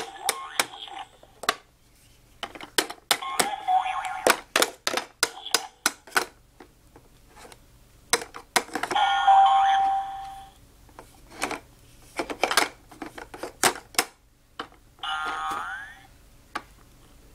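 Plastic toy hammer knocking and tapping on a Fisher-Price toy workbench, many sharp taps throughout, with the workbench's electronic chimes and short tunes sounding in four bursts.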